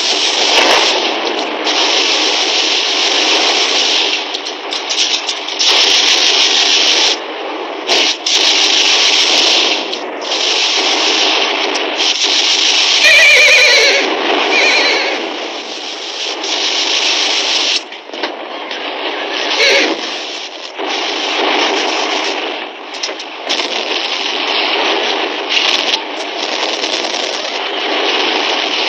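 Battle sound effects on an old, thin-sounding film soundtrack: dense, continuous gunfire and hoofbeats of charging cavalry. Horses whinny loudly about halfway through, with falling cries, and again briefly near 20 s.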